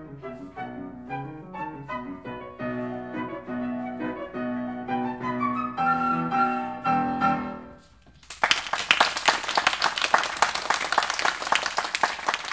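Concert flute and Kawai grand piano playing the closing bars of a fast piece: quick running piano notes under the flute, a rising flute line to a held final chord that stops about eight seconds in. After a brief pause the audience breaks into applause.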